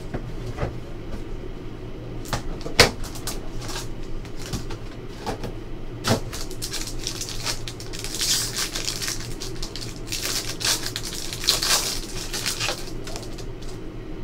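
Hands handling a trading-card box and tearing open a foil card pack: sharp taps and knocks as the box is handled, then crinkling foil wrapper in two spells, about eight and eleven seconds in.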